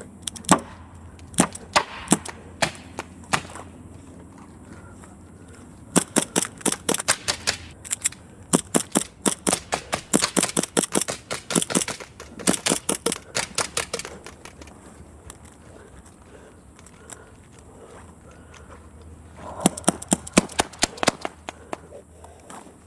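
A handgun fired in quick strings of shots: a handful spread over the first few seconds, a long run of rapid fire from about six to fourteen seconds in, and another short burst near the end.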